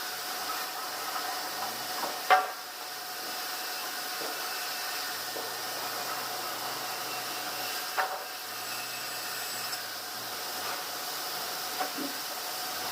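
Steady hiss of running sawmill machinery, with three sharp wooden knocks, the loudest about two seconds in and weaker ones near the middle and near the end.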